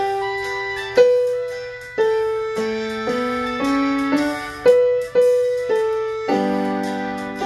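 Electronic keyboard played slowly in a piano voice: melody notes struck about once a second and left to ring, with a short rising bass line in the middle and a fuller chord about six seconds in.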